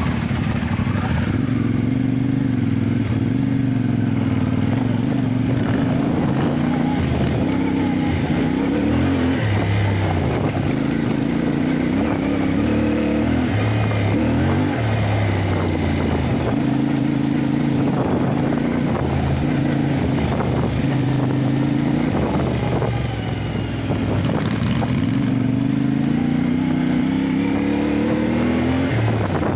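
Motorcycle engine running under way, its revs climbing and dropping again and again as the rider accelerates and eases off, with a long climb near the end.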